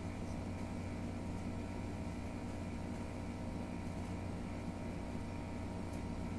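Steady low hum with an even hiss underneath, a continuous machine-like room background with no clicks or keystrokes.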